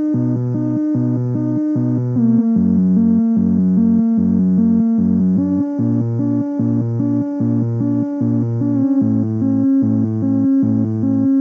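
Korg Volca Bass synthesizer playing a slow ambient sequence at 75 bpm with delay and reverb, heard through a small SX 10-watt amp and picked up by a phone. Bass notes pulse a little over once a second under held higher tones, and now and then the notes slide in pitch to a new chord.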